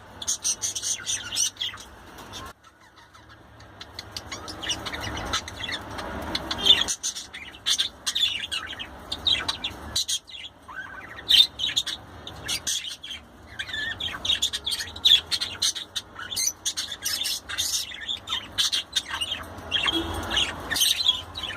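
Budgerigar chirping in a quick, busy run of short high chirps, with a brief lull about three seconds in.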